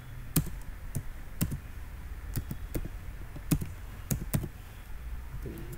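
Computer keyboard being typed on: about a dozen separate key clicks at an uneven pace, over a low steady hum.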